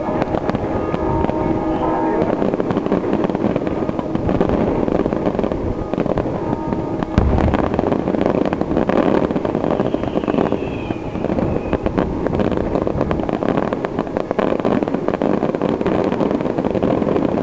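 Aerial firework shells bursting overhead in a dense stream of crackles and bangs, with one heavy boom about seven seconds in and a short whistle around ten seconds.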